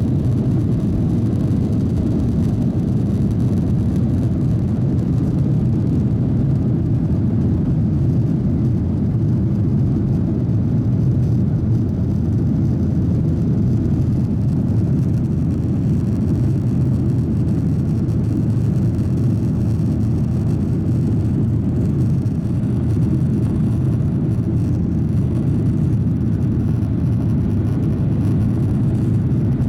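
Airliner cabin noise: a steady low rumble from the jet engines and airflow, heard from inside the passenger cabin.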